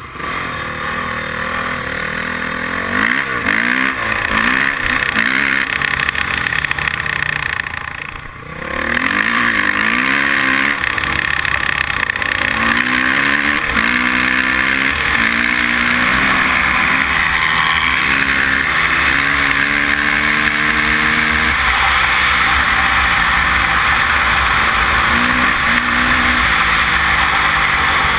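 Honda dirt bike engine accelerating through the gears, its pitch rising and dropping at each shift, with a brief let-off about eight seconds in, then holding a steady speed. Wind rushes over the helmet-mounted microphone.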